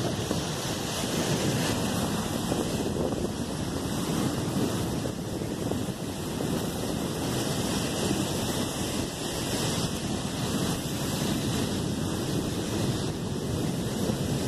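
Steady wash of sea surf breaking on the shore, mixed with wind buffeting the microphone.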